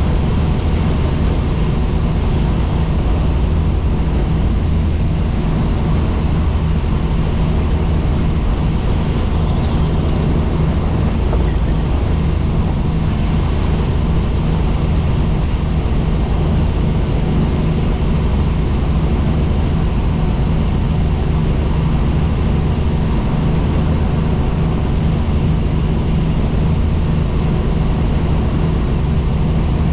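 Helicopter in flight: steady, loud engine and rotor noise, a deep drone with a few held tones under it that does not change.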